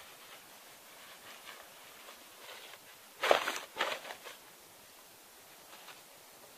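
A fabric camp-chair seat being shaken out, with two loud flaps a little past the middle and faint rustling around them.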